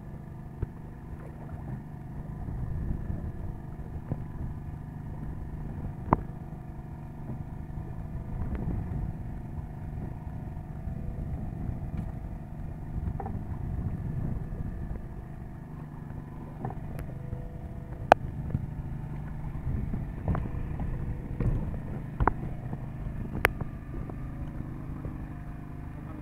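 Steady low drone of a fishing boat's motor running, with a few sharp knocks.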